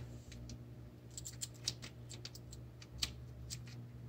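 Small pink scissors snipping at the plastic-foil wrapper of a LEGO blind bag: irregular sharp snips and clicks, bunched together about a second in, over a steady low hum.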